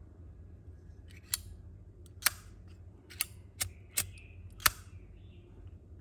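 Zippo lighter's metal lid clicking open and snapping shut, six sharp clicks over a few seconds.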